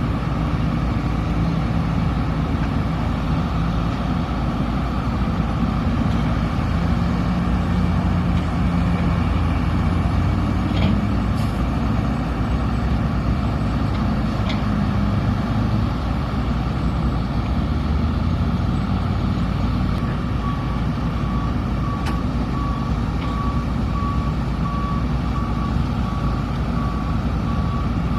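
SANY SY330H excavator's diesel engine running and working, its note rising and falling with the load, with a few light knocks. About two-thirds of the way through, a reversing alarm starts beeping steadily at about one and a half beeps a second.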